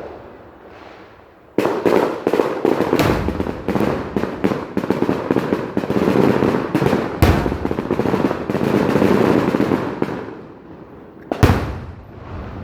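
Fireworks going off: a dense, rapid crackle of bangs starting about a second and a half in and lasting some eight seconds, with one louder bang partway through. A single sharp bang with a fading tail comes near the end.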